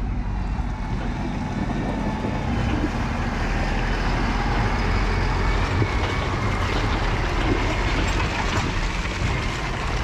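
Massey Ferguson tractor pulling a Herron silage trailer drives past, its diesel engine loudest around six seconds in as it goes by, then easing as it moves away.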